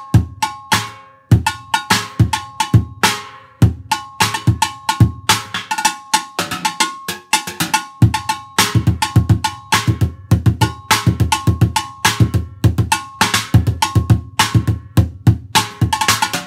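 Bucket drum set played with drumsticks as a full drum-set beat. Low thuds from a big bucket bass drum mix with cracks from a metal pail snare and clanks from a steel bowl cymbal that keeps ringing between strikes. The strikes come faster near the end.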